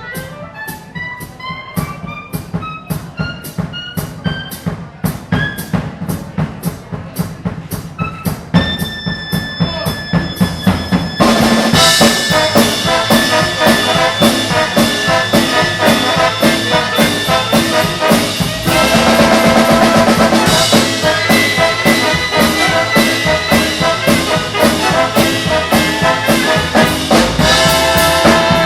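Live big band playing swing: brass (trumpets and trombones) over a steady drum-kit beat. A rising line builds over the first several seconds, the full band comes in louder about eleven seconds in, and the tune ends with a final chord near the end.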